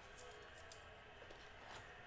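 Near silence: room tone with a few faint clicks and rustles of trading cards being handled.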